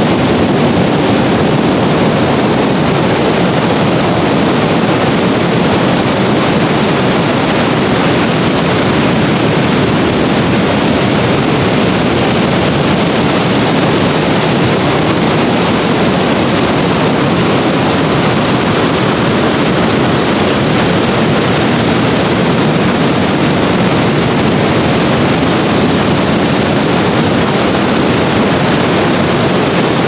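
Ocean surf breaking on a sandy beach: a steady, even rush of noise without a clear wave-by-wave rise and fall.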